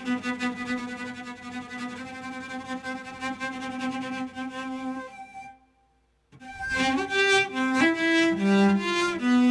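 Erhu-like bowed-string sound played on a keyboard synthesizer: one long held note, a brief break about six seconds in, then a short phrase of several notes stepping up and down.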